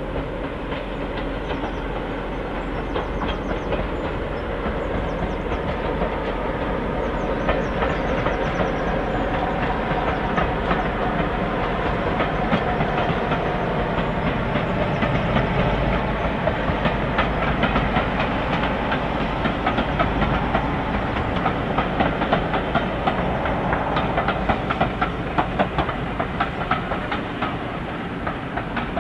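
Class 47 diesel-electric locomotive's Sulzer twelve-cylinder engine running steadily as it hauls a passenger train past. The wheels click over rail joints, the clicking thickening in the second half as the coaches go by.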